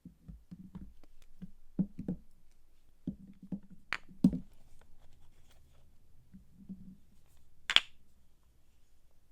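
Bars of soap and their packaging being handled close up: soft knocks and taps on a hard surface, with a couple of sharp clicks about four seconds in and one crisp snap near the end.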